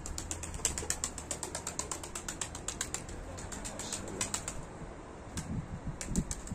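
Young domestic pigeons' wings clattering as the birds land on and lift off a ledge: a rapid, irregular run of sharp wing claps, thickest in the middle and again near the end, over a low wind rumble.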